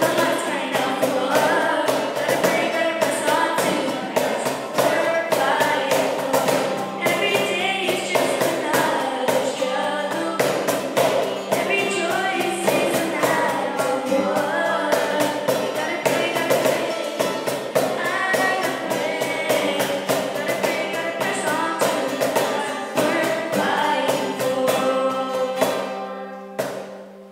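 Live acoustic worship song: singing over a strummed acoustic guitar and a steady beat played by hand on a cajón. Near the end the song stops and a final chord is left ringing.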